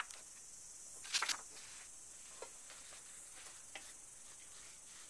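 Faint rustles and scrapes of crayon and black paper being handled, loudest as a double scrape about a second in, with two lighter ones later, over a steady high hiss.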